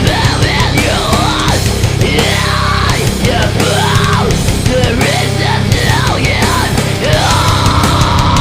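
Heavy metal band playing at full volume: distorted guitars and drums, with sliding, bending pitch lines over a dense, steady low end.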